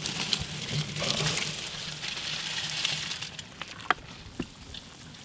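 Dry rice being poured from a bowl into a large aluminium pot of boiling stock, a steady rustling hiss of grains pattering into the water. About four seconds in the pouring stops and two sharp clinks follow.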